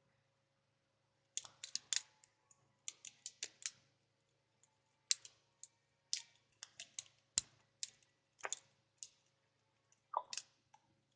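A homemade Lego butterfly knife being flipped through tricks: sharp, irregular clicks and clacks of plastic Lego parts knocking together, some in quick runs of several, with short pauses between.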